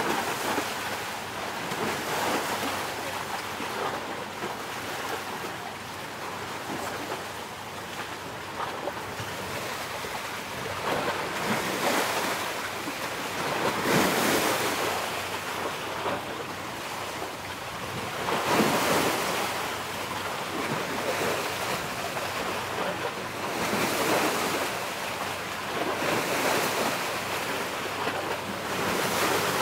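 A steady rush of wind and sea surf that swells in surges every few seconds.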